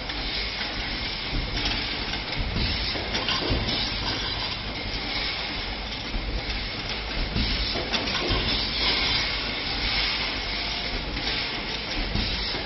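Automatic rebar stirrup bending machine running: a steady hissing machine noise that swells and eases as it feeds the bar and bends it into stirrups, with a few sharp knocks.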